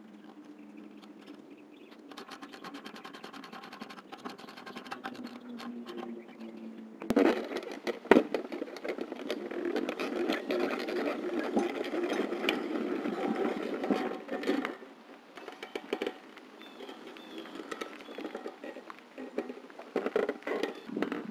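Motorized RV roof satellite dish's drive motors whirring with a fast ticking as the dish turns and tilts up. A louder, rougher stretch with a few knocks starts about seven seconds in.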